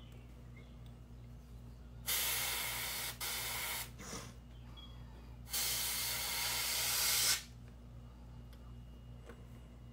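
Airbrush spraying paint in two bursts of about two seconds each, a steady hiss of air and paint, the first burst briefly broken partway through.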